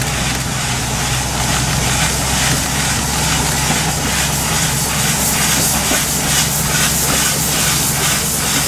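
Narrow-gauge steam locomotive running slowly, its exhaust chuffing about three times a second, with steam hissing from the open cylinder drain cocks. A steady low engine drone runs underneath, from the red diesel locomotive coupled behind it.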